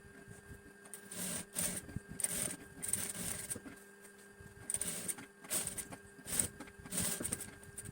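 Sewing machine stitching fabric in about seven short runs, each under a second, with brief pauses between them, over a steady faint hum.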